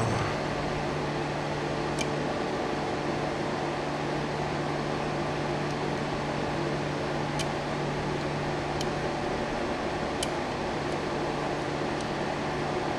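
Steady fan-like hum and hiss, with a few faint, sharp clicks spread through it as a pick works the pins of a pin tumbler lock fitted with security spool pins.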